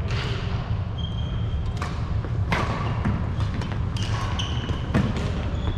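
Badminton rally: rackets strike the shuttlecock about once a second, each hit a sharp crack, with short high squeaks of court shoes on the wooden floor. A steady low hum runs underneath.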